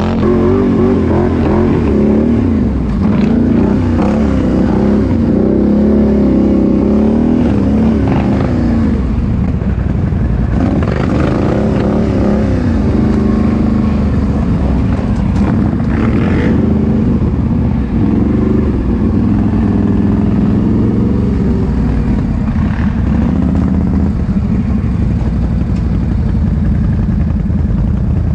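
ATV engine running hard, revving up and down repeatedly as the machine works over rough, slippery ground.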